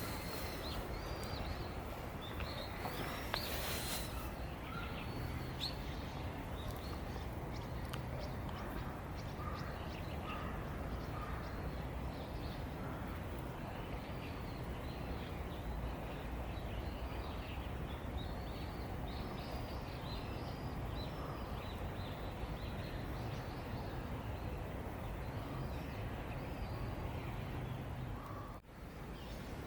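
Outdoor ambience: a steady background hiss and rumble, with small birds chirping in short calls throughout.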